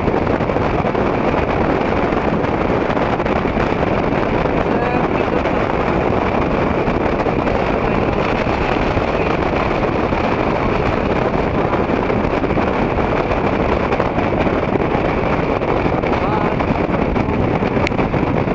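Strong wind blowing across the camera microphone, a steady, unbroken rushing noise.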